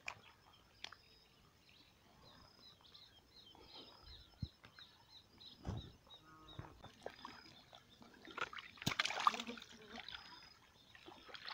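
Faint outdoor quiet with a bird repeating short high chirps, about three a second, through the first half. Near the end comes a short spell of louder rustling and handling noise.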